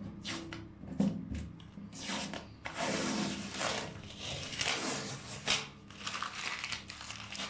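Masking tape being peeled off and the protective paper crumpled, a run of irregular ripping and crinkling noises.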